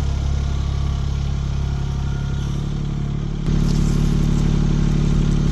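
Kymron XH20D mini-excavator's diesel engine running steadily. About three and a half seconds in, the note changes abruptly to a louder, steady run.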